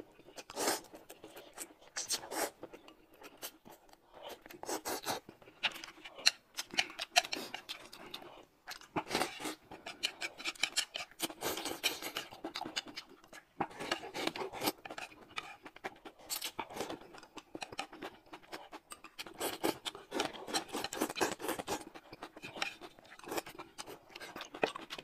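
Close-miked eating sounds: noodles slurped and chewed, with chopsticks scraping and clicking against the plate in quick, irregular strokes.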